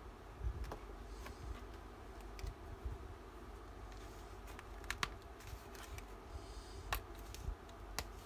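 Sheets of stickers and die-cuts being handled and picked at by hand on a cutting mat: faint paper rustling and a few scattered sharp little clicks and taps, over a steady low hum.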